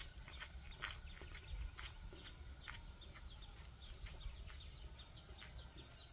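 Faint, irregular footsteps crunching on dry ground outdoors, a few steps a second, thinning out toward the end, over a low steady rumble.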